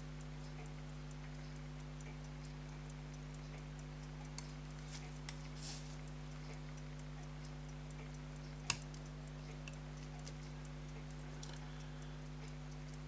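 Small scattered metal clicks and taps from hand work on a pocket watch, with one sharper click about two-thirds of the way through, over a steady electrical hum.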